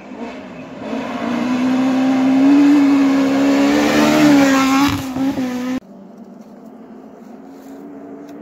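Citroën C2 rally car's engine at high revs as it slides past on a snow stage, the note building over the first two seconds and staying loud, with a brief dip in pitch near five seconds as the driver shifts or lifts. About six seconds in the sound cuts off abruptly to a much fainter steady engine drone.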